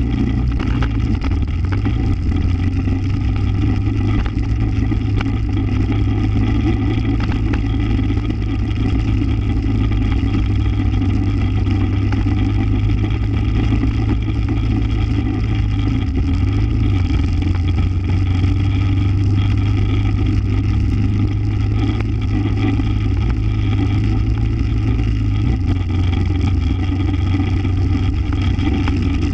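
ATV engine running steadily while riding along a dirt trail at an even speed, its pitch holding nearly constant throughout.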